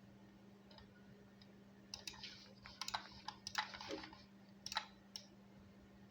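A quick, irregular run of faint clicks and rustles over a low steady hum.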